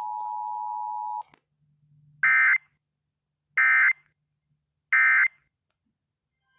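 Emergency Alert System two-tone attention signal, a steady dual tone that cuts off about a second in, followed by three short identical bursts of screechy EAS data tones about a second and a half apart, the end-of-message signal that closes an alert.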